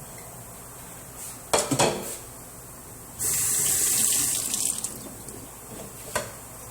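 A short clatter, then a kitchen water tap turned on suddenly and running for a second or two before it tapers off.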